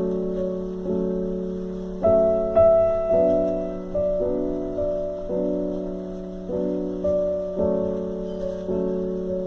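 Background piano music: gentle chords struck about once a second, each left to fade.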